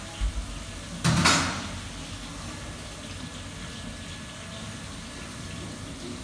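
A brief rush of splashing water about a second in, fading within half a second, after two dull low thumps, over a steady kitchen background hum.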